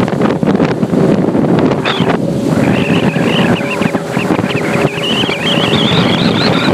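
Evinrude 150 outboard motor driving a boat at speed, under heavy wind buffeting on the microphone and rushing water from the wake. A wavering high whistle joins about two and a half seconds in.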